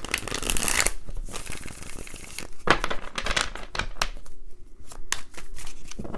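A deck of tarot cards being riffle-shuffled and bridged: a fast rippling flutter for about two and a half seconds, then a few sharp taps as the deck is squared up.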